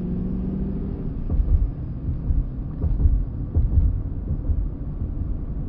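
Semi truck cab noise at highway speed: a steady low engine and road rumble with uneven low buffeting, heard through the dashcam inside the cab.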